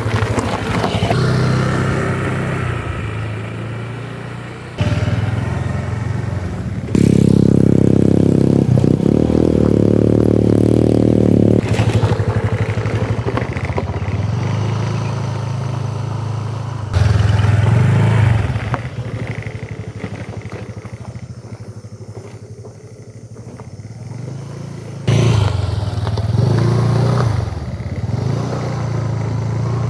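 Small automatic scooter engine passing close by and riding away on rough gravel roads, in several short clips joined by abrupt cuts; the engine note rises and falls as it passes.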